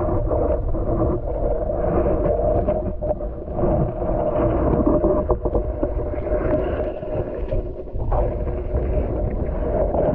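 Muffled underwater ambience picked up by a submerged camera in a pond: a steady low water rumble and drone, dull and cut off at the top, with faint scattered ticks.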